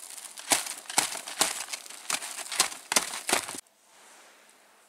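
Touring skis and poles crunching on snow as a skier steps along, about two crunches a second, cutting off abruptly about three and a half seconds in.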